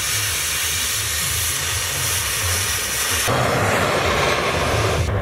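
Oxy-acetylene cutting torch hissing steadily as it cuts metal; about three seconds in the hiss gives way to a rougher, lower rushing of the open flame. A steady low hum runs underneath.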